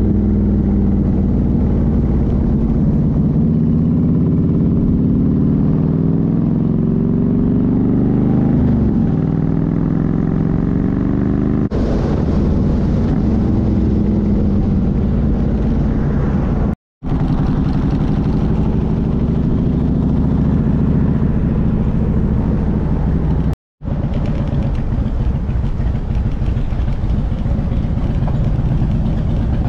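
Harley-Davidson Ultra touring motorcycle's V-twin engine running on the road under a steady rush of riding wind, its engine note falling and rising with speed. The sound drops out abruptly twice for a moment.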